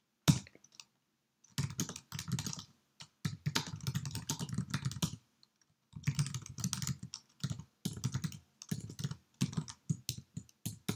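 Typing on a computer keyboard: one sharp keystroke just after the start, then runs of quick key clicks broken by short pauses.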